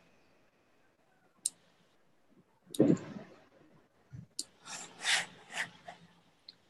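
Computer mouse clicks and handling noise picked up by a video-call microphone set too loud: a few sharp clicks, a louder thud about three seconds in, then a run of scratchy rubbing near the end.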